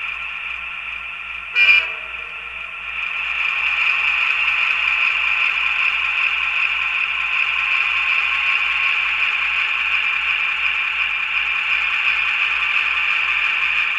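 Sampled ALCO 244 diesel engine sound from an HO-scale model locomotive's QSI Titan sound decoder, played through the model's small speaker. The engine runs with an even throb, a short loud horn toot comes about one and a half seconds in, and about three seconds in the engine sound gets louder and stays there.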